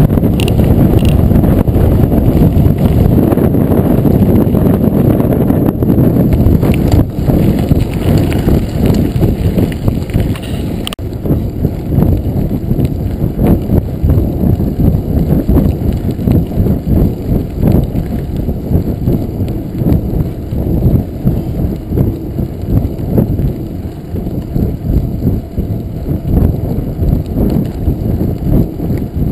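Full-suspension mountain bike rolling over a gravel road: tyres crunching, the bike rattling over bumps in a fast, uneven patter, with a few sharper knocks, heard through a GoPro Hero2 with wind buffeting its microphone.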